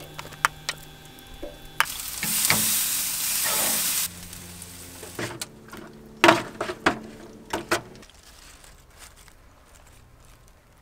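Chicken sizzling on hot grill grates, a loud steady hiss for about two seconds. A few sharp clicks and knocks follow midway as the sauced chicken is handled with tongs in an aluminium foil pan, then it goes quiet.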